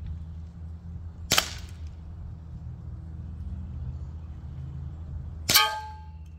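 Two sharp cracks about four seconds apart from a CO2 blowback BB pistol firing at targets; the second rings briefly with a metallic clang, a BB striking metal.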